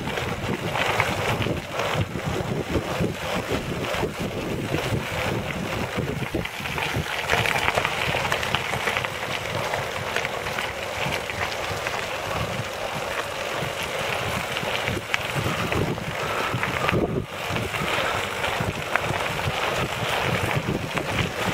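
Tyres of a recumbent quad bike rolling over a gravel forest road: a steady rough noise full of small crackles, mixed with wind buffeting the microphone.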